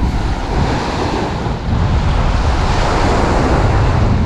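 Small waves breaking and washing up the shore in a steady hiss, with wind buffeting the microphone in a low rumble.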